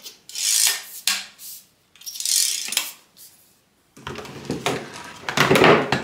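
Handling noise from hard plastic vacuum-cleaner parts: the telescopic tube, hose and nozzle are rubbed, slid and knocked on a table. It is a string of short rubs and clatters, busier and louder in the last two seconds.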